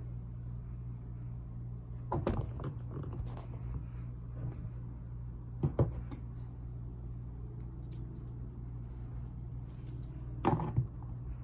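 Handling of a wristwatch and its packaging: a few short clicks, knocks and rustles, the loudest cluster near the end, over a steady low hum.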